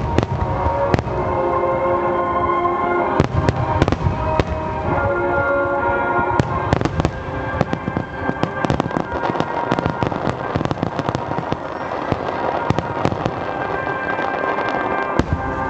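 Fireworks display: aerial shells going off in many sharp bangs, with dense crackling from about halfway through, over sustained music.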